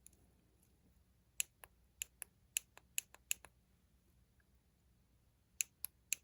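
Small plastic push-button of a worn Spektrum DX6i roller switch being pressed by hand: a quick run of about eight sharp clicks, then three more near the end.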